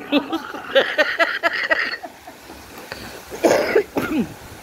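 Women laughing hard: a quick run of short laughs in the first two seconds, then another outburst about three and a half seconds in.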